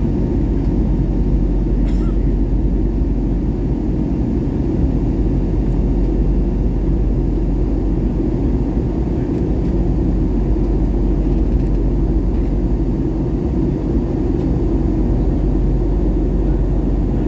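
Steady low roar of an aircraft in flight, the kind of engine and airflow noise heard inside a passenger cabin, holding even throughout.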